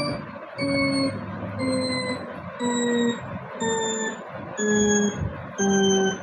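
A series of steady electronic tones, about one a second, each held briefly and pitched a little lower than the one before, like a slowly descending tune.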